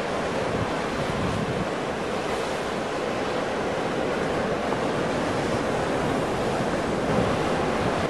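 Ocean surf: waves breaking and washing in a steady, continuous rush with no single crash standing out.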